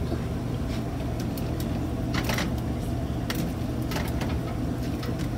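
Boiled potato chunks being scraped out of a plastic colander into a steel pot, with a few short knocks and scrapes of the utensil against the colander and pot, over a steady low hum.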